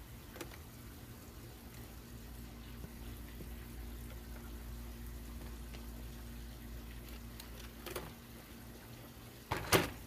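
Faint steady background hum with a few small handling clicks, then a few sharp knocks near the end as a plastic toy RC truck is set down on a glass tabletop.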